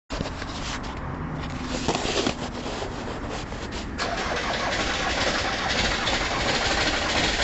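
Starter motor cranking the cold Ford Transit diesel engine, which is reluctant to start in winter. About four seconds in, the sound becomes louder and denser.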